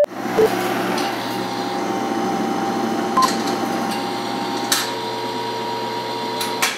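A steady machine-like hum with a few constant tones, broken by a short beep at the start, a brief higher beep about three seconds in, and a few sharp clicks.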